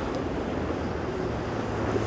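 Boat engines running over the wash of waves, with wind buffeting the microphone and a faint low engine hum in the second second.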